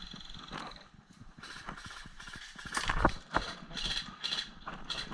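Footsteps on rough ground, a step about every half second, with a couple of louder knocks about three seconds in.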